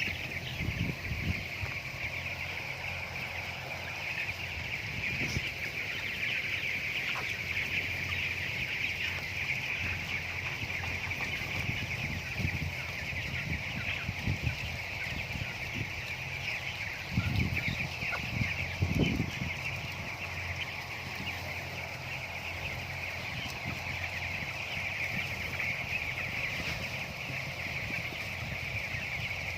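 A flock of broiler chickens calling together: a dense, unbroken chorus of high peeping. A few low bumps and thumps come through, the loudest a little past the middle.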